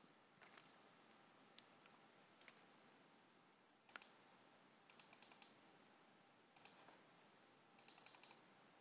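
Faint computer mouse clicks over a low hiss: scattered single clicks and a few quick runs of four or five in a row.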